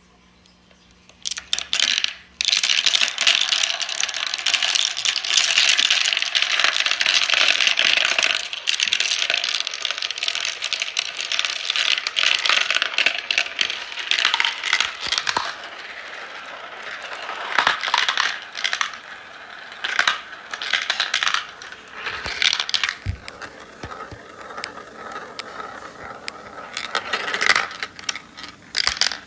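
Marbles rolling and clattering down a marble run: a dense rattle of many small hard clicks starting about a second in, busiest for the first several seconds, then thinning to scattered bursts of clicks and rolling.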